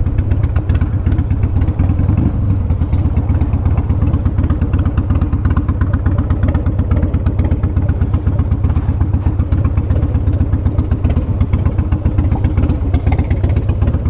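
Harley-Davidson V-twin motorcycle engine idling with a lumpy, uneven beat while the bike stands still.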